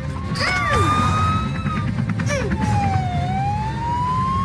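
Cartoon ambulance siren wailing: a single slow tone that rises, dips about three seconds in, and climbs again, over a low steady rumble. A couple of short swooping sound effects come early on top.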